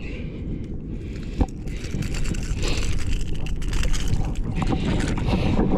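Wind buffeting the microphone over the wash of shallow water, getting louder about two seconds in, with one sharp click about a second and a half in.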